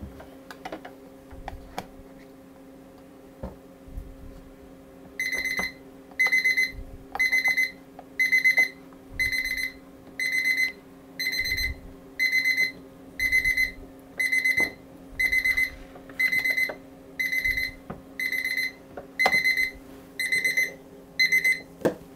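Digital stopwatch alarm going off: loud, high beeps, each a quick pulsing chirp, repeating about once a second. They start about five seconds in and stop just before the end. Before the alarm there are a few soft clicks of trays and tongs being handled.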